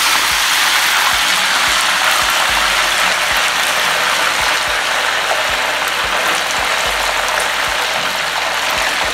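Wet spinach leaves deep-frying in a kadai of hot oil, sizzling and spluttering loudly with dense crackling. The water still on the leaves is what makes the oil spit.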